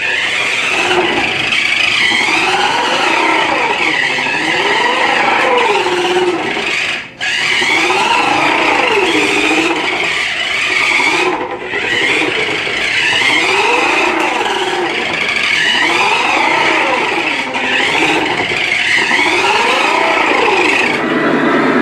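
Small electric motor of a Monster Jam Dragon RC truck whining, its pitch repeatedly rising and falling as the throttle is pushed and released. It drops out briefly twice.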